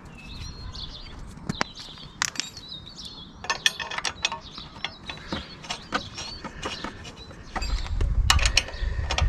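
Hand socket ratchet clicking as a thread-locked bolt is run into a motorcycle engine guard mount, with small metal taps and clicks of the bolt and tool being handled; the clicking gets busier in the second half.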